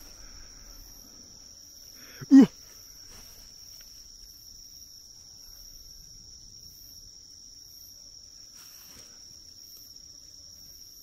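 A night insect singing a steady, unbroken high-pitched trill. About two seconds in comes one short, loud voice-like sound.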